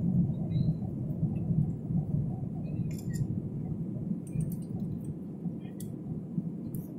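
Airliner cabin noise during the climb after takeoff: a steady low rumble of the jet engines and airflow that eases slightly over the seconds, with a few faint clicks.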